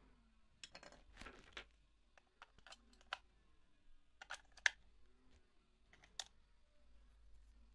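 AA batteries being pushed into a plastic toy's spring-contact battery compartment: a series of small, faint plastic clicks and taps, with a short rustle about a second in and the sharpest click past the halfway point.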